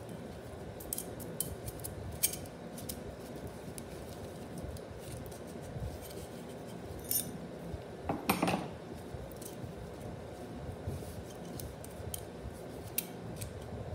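Turbo 400 transmission sprag and clutch parts being handled and fitted by gloved hands: scattered light metal clicks and clinks, with a louder one a little past the middle.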